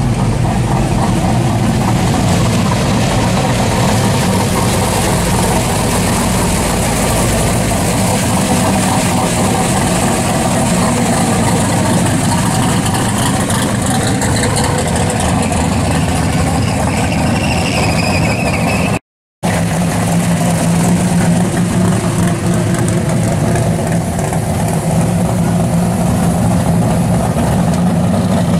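Modified V8 muscle-car exhausts rumbling at idle and low speed as the cars roll by, a loud, continuous low drone. The sound drops out completely for a moment about two-thirds of the way through, then the rumble carries on.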